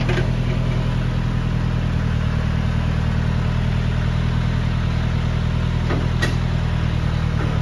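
Tractor engine running steadily at an even speed, with a couple of faint knocks about six seconds in.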